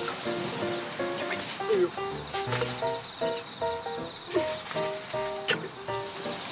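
Crickets trilling in one steady high tone. Light background music plays underneath, with a few sharp clinks as drink cans are touched together in a toast.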